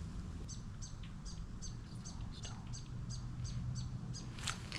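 A bird calling a steady run of short, high chirps, about three or four a second.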